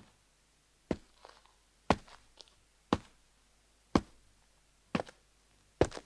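Anime footstep sound effects: sharp single steps about once a second, each followed by a fainter light tap.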